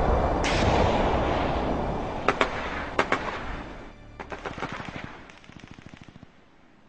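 Wartime gunfire sound effect: a dense rumbling din with single sharp shots about two and three seconds in, then a rapid run of machine-gun fire that fades away, leaving near silence near the end.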